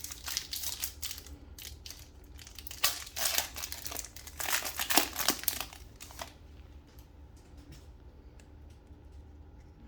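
Trading-card pack wrapper being torn open and crinkled, in crackly bursts over about the first six seconds, then only faint handling.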